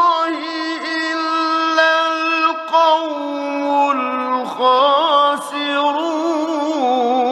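Male Quran reciter chanting in the melodic mujawwad style, drawing a phrase out in long held notes with wavering ornaments. The sound is that of a 1960s Egyptian radio recording.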